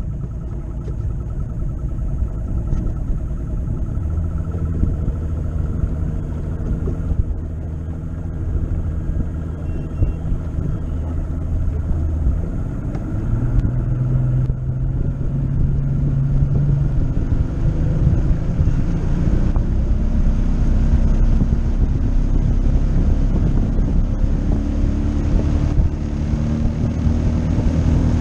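Bass boat's outboard motor running as the boat travels across the lake, steady and getting gradually louder, its engine note shifting higher in the second half.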